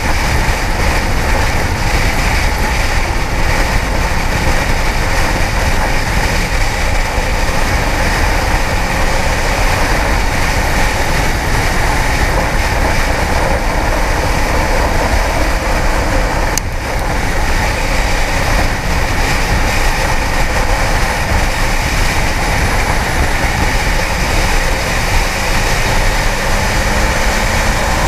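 Kawasaki ZX-10R sport bike ridden in traffic: a steady rush of wind and road noise with the inline-four engine running underneath.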